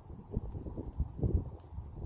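Wind buffeting the camera microphone in irregular low rumbling gusts.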